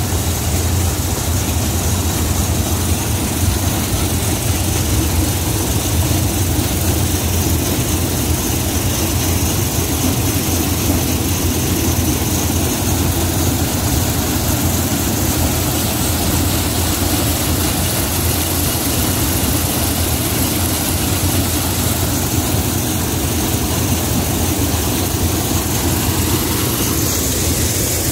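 Antique stationary corn sheller and the engine driving it, running at a steady speed: an unchanging low drone.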